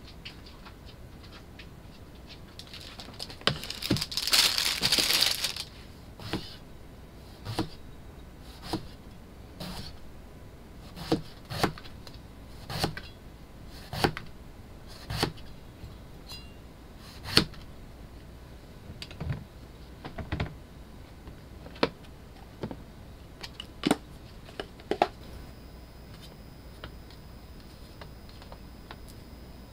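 Kitchen knife slicing eggplant into rounds on a plastic cutting board: sharp knocks about once a second as the blade goes through and hits the board, after a brief noisy rustle about four seconds in. The knocks stop near the end.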